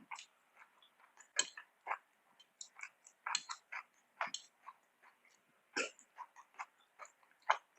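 Close-miked eating sounds: irregular wet chewing, lip smacks and mouth clicks, several a second with short pauses.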